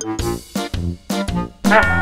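Music in short, punchy chords with brief gaps between them; the loudest chord comes about three-quarters of the way through.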